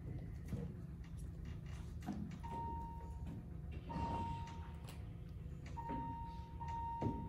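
Quiet stage-room tone: a steady low hum with light knocks and shuffles, and a faint held high tone that comes and goes from about two and a half seconds in.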